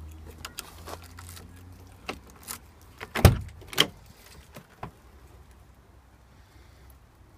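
Volkswagen van's cab door being opened: a few light clicks and rattles, then a heavy clunk of the door latch a little after three seconds in, followed by a few lighter knocks.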